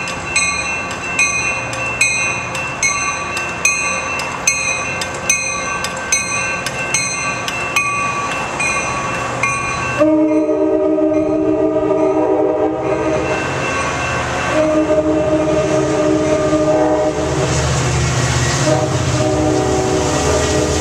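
A bell dings steadily, a little more than once a second, and stops abruptly about halfway through, when the Coaster train's bilevel cab car sounds its Nathan K5LA five-chime air horn in three long blasts. The rumble of the passing bilevel cars grows under the horn near the end.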